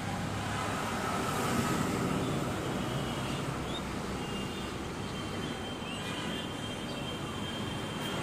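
Diesel engine of a Komatsu PC60-6 excavator running at a steady idle, with a faint high whine joining in about halfway.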